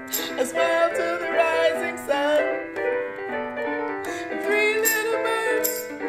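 Portable electronic keyboard playing chords with a woman singing over it and a tambourine shaken in time.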